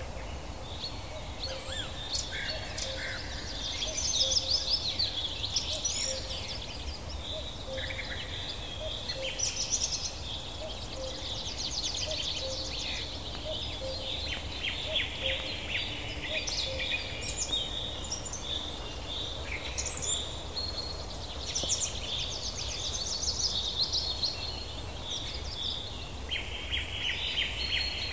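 Songbirds singing together in a dense chorus of overlapping chirps and fast trills, over a low steady background noise.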